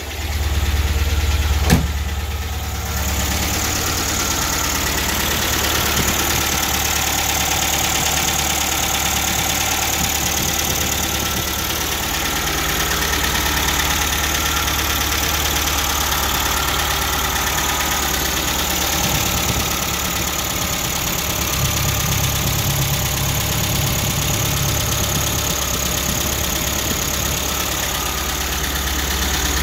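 MGB GT's four-cylinder B-series engine idling from cold with a tapping noise, heard close up at the open bonnet. A single sharp knock about two seconds in.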